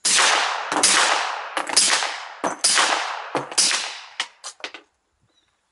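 Five suppressed 9mm pistol shots from a Glock 19 with a SilencerCo Octane 45 suppressor, firing Tula 115-grain ammunition, about one shot a second. Each shot is followed by a fading echo, and a few fainter sharp ticks come after the last one.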